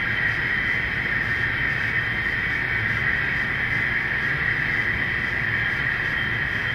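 Model diesel locomotives running steadily along a model railroad: an even hum with a constant higher whine and no changes.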